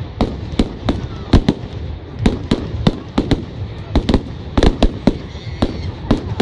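Fireworks going off at a display: a rapid, irregular run of sharp bangs from bursting shells, several a second, over a steady low rumble.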